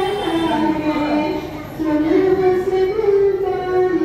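A child's voice singing a slow melody in long held notes that step up and down, with a short break about halfway through.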